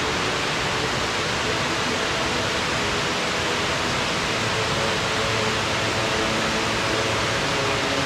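Mossbrae Falls: many thin streams of water pouring down a mossy cliff into a pool, making a steady, even rushing hiss.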